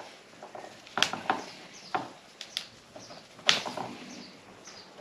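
Azalea root ball being pulled and teased apart by hand: irregular crackling and sharp snaps of tangled roots and soil giving way, the loudest snap about three and a half seconds in.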